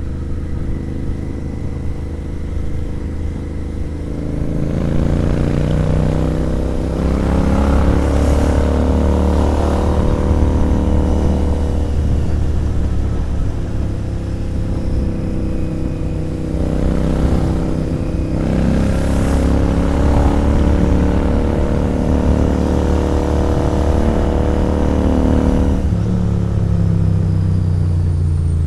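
Royal Enfield Interceptor 650's parallel-twin engine through a sport exhaust, ridden under throttle. The engine note climbs twice as it pulls, holds, and falls away about a second or two before the end as the throttle closes.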